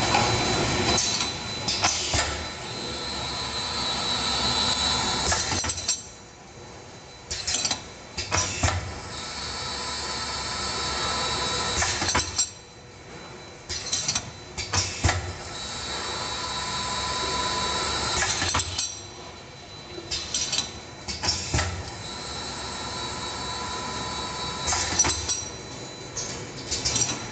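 Automatic multi-head bottle filling machine on a conveyor line, working in repeating cycles. A steady mechanical whirr and hiss runs for several seconds, then drops off, and a few sharp clacks follow in the lull. The cycle repeats about every six and a half seconds.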